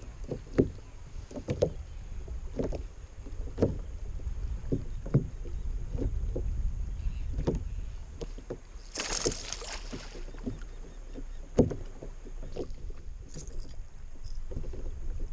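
Wind rumbling on the microphone aboard a fishing kayak, with scattered sharp knocks and taps of rod and gear against the kayak's hull. A short hissing rush of noise, about a second long, comes about nine seconds in.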